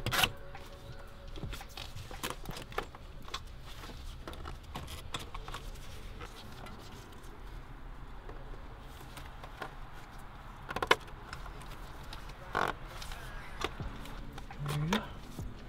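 Scattered clicks, taps and light rattles of car parts and tools being handled while a part is fitted into an engine bay, with a few sharper knocks about eleven and thirteen seconds in, over a low steady hum.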